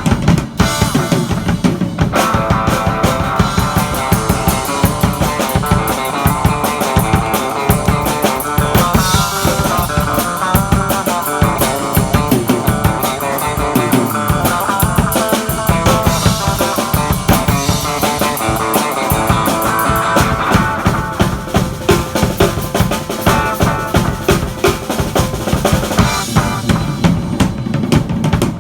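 Drum kit played hard and steadily, bass drum and snare, jamming with a Telecaster electric guitar through a small tube amp, which joins about two seconds in.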